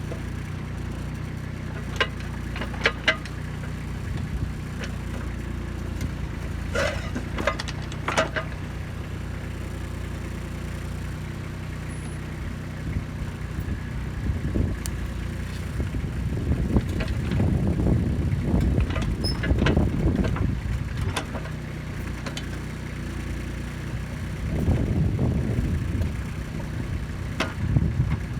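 Kubota B2630 compact tractor's diesel engine running steadily, with a few sharp metallic clanks in the first eight seconds and two longer stretches of louder, rougher noise past the middle and near the end.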